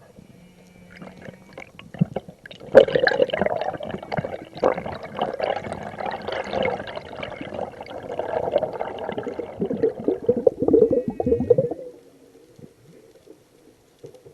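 Whale calling: one long, rough call that starts about three seconds in, runs for about nine seconds and cuts off near the end.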